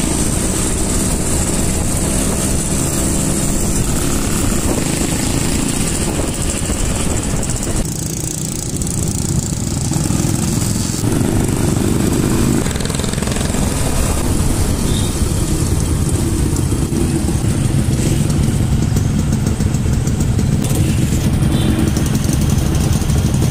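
Small motorcycles running as they ride along in a group, with steady road and wind noise; the sound changes abruptly a few times.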